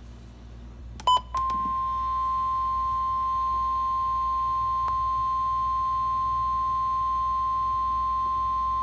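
Weather-warning alert tone: a short blip about a second in, then one steady high beep at a single pitch that holds on without a break. This is the National Weather Service's 1050 Hz warning alarm tone, which signals that a warning is about to be read.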